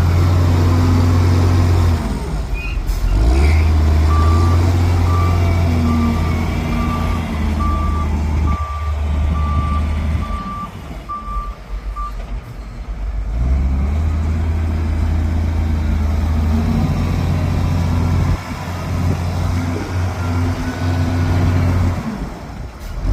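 Bulldozer's diesel engine working, its note rising and falling, with a reversing alarm beeping evenly, about one and a half beeps a second, through the first half. The engine drops back for a few seconds around the middle before picking up again.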